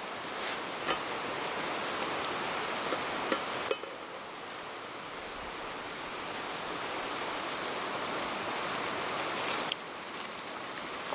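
Steady rushing of river water, with scattered light ticks and clicks; the level drops abruptly twice.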